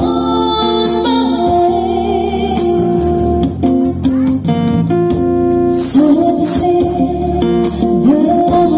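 Live band music: a woman singing into a microphone over guitar, keyboard and percussion.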